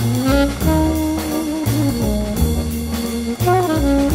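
Background jazz music with brass instruments playing a melody over a bass line.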